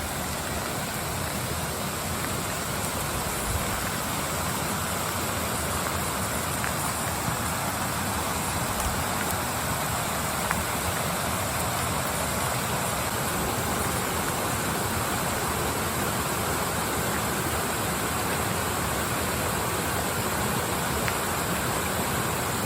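Waterfall rushing in a steady, even wash of falling water that grows slightly louder; the fall is running high with recent rain.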